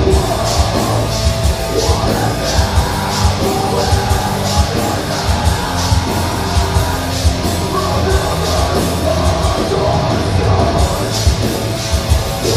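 A live deathcore band playing at full volume, heard from the audience: down-tuned distorted electric guitars, bass guitar and pounding drums, with harsh screamed vocals.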